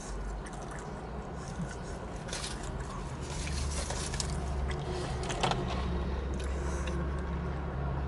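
A person chewing and biting into a Philly cheesesteak sandwich: scattered short wet and crackly mouth noises over a steady low hum.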